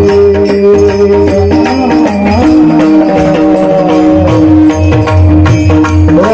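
Marathi devotional kirtan music: steady held tones over hand-drum strokes and jingling percussion, with a melody line that glides and wavers in an alaap about two seconds in and again near the end.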